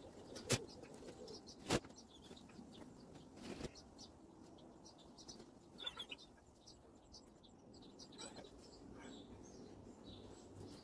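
Faint scratching of a pencil drawing on a wooden board, with a few sharp clicks in the first few seconds.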